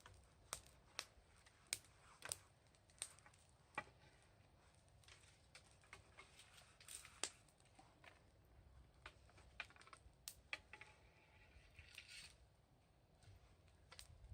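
Wood bonfire crackling: faint, with sharp irregular pops and snaps, most of them in the first few seconds.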